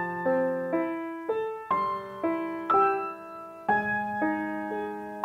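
Background piano music: a slow melody of single notes struck about twice a second, each fading away, over a held low note.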